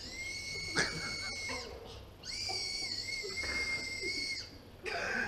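Recorder playing two long, high held notes, the second wavering slightly in pitch, with a short knock between them; the player calls the instrument out of tune.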